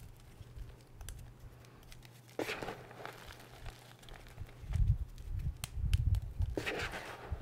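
Bare hands crumbling and crushing dry chunks of reformed gym chalk in loose powder: crisp crunching bursts about two and a half seconds in and again near the end, with dull low thuds in between as the hands press into the pile.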